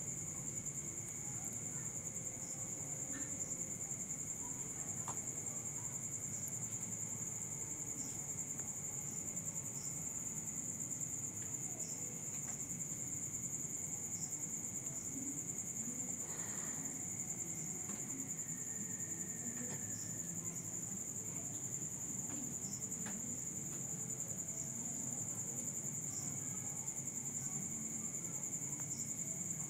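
Crickets chirping, a steady high-pitched trill that does not let up.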